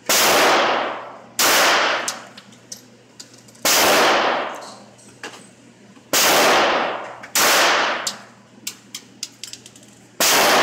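.22 LR semi-automatic pistol fired six times at an uneven, unhurried pace, each shot ringing off in the echo of an indoor range for about a second. Fainter sharp clicks fall between the shots.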